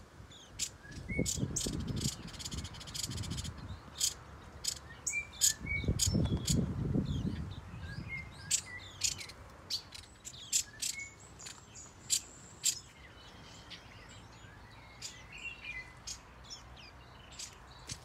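Small aviary birds chirping: many short, sharp chirps and calls scattered through, some in quick runs. Low rumbling bumps come about a second in and again around six seconds.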